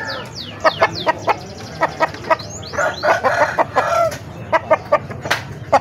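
Caged roosters clucking and crowing, with many short sharp calls and a fuller crow about three seconds in. The roosters are fighting cocks (ayam jago aduan).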